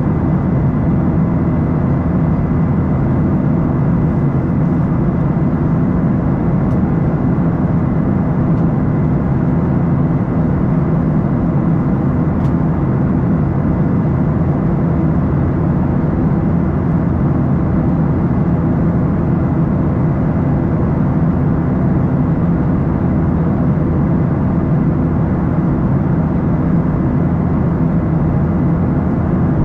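Steady cabin noise of a Boeing 737-800 in flight, heard from a window seat beside the engine: the CFM56-7B turbofans' deep drone and rushing airflow, with a faint thin high whine above it.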